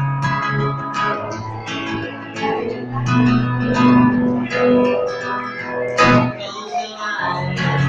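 Guitar music, with plucked notes and chords over a steady bass line. There is a sharp strum about six seconds in, followed by a brief drop in the low notes.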